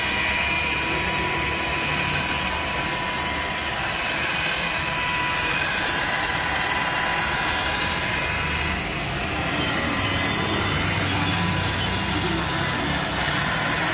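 Electric rotary polisher running steadily with a constant whine while its buffing pad works over a motorcycle's plastic body panels.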